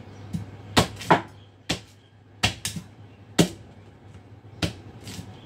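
A cleaver chopping down onto a wooden cutting board: about seven sharp, unevenly spaced strokes.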